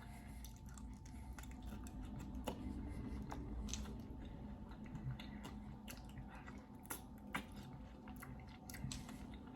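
A person chewing clams, with many short wet mouth clicks scattered throughout.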